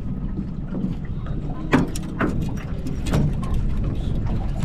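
Small boat's tiller outboard motor running steadily as the boat moves, with wind on the microphone. A few short sharp knocks cut through the drone.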